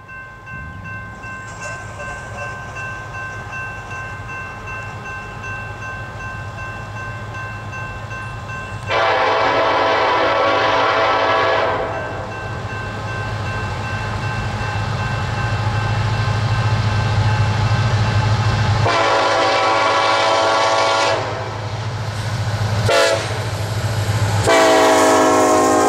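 Union Pacific SD70ACe diesel locomotive approaching with a steady engine rumble that grows louder as it nears. Its air horn sounds long, long, short, long, the standard signal for a grade crossing. The last blast comes as the locomotive passes close by.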